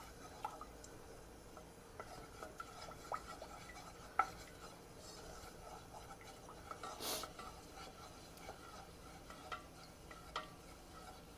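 Faint scattered taps and scrapes of a utensil stirring a flour-and-oil roux in a pan as it heats, with a longer scrape about seven seconds in.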